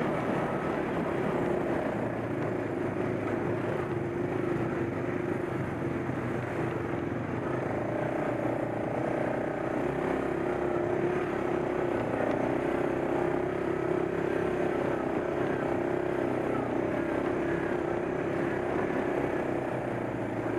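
ATV engine running at a steady speed while riding a rough dirt trail, heard from on board. The drone holds a steady pitch and grows a little stronger about eight seconds in.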